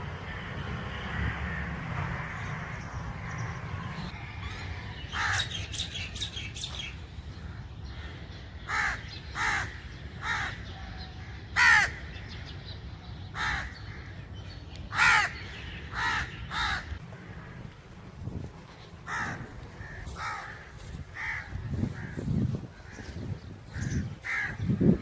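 Crows cawing: a run of short harsh caws, some single and some in quick pairs or threes, starting about five seconds in, over a low steady rumble that fades out after the first few seconds.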